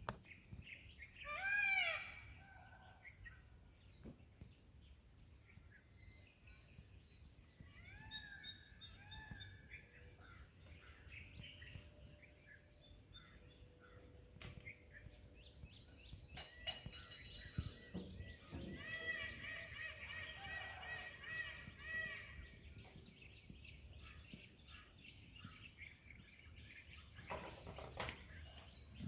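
Wild birds calling: one louder call about two seconds in, then scattered quieter repeated chirps, over a steady high-pitched background hum.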